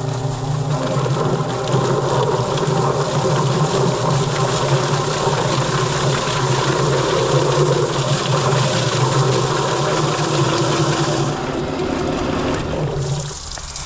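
Yardbird electric chicken plucker running with a scalded chicken inside: a steady motor hum under a rattling, slapping churn as the bird tumbles against the rubber plucking fingers and its feathers are stripped. It drops off near the end.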